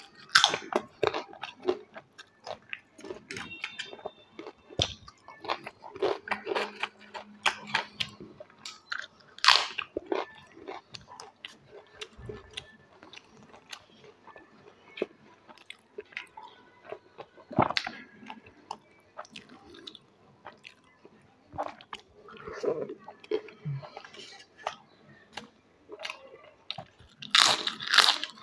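Crisp fried potato chips and aloo papad being bitten and chewed, a dense crackling crunch with louder bites every several seconds.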